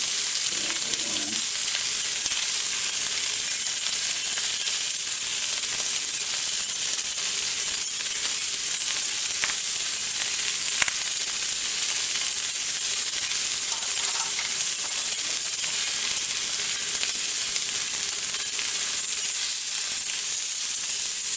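Steaks searing in hot oil in a stainless steel frying pan, a steady sizzle. A single sharp click about eleven seconds in.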